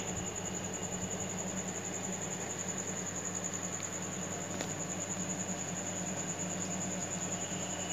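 Steady low electrical hum with a constant high-pitched whine over it, and a faint click about four and a half seconds in.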